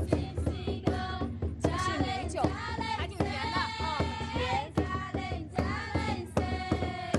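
Wa women singing a welcome toasting song together as water wine is offered, several voices over a steady drum beat.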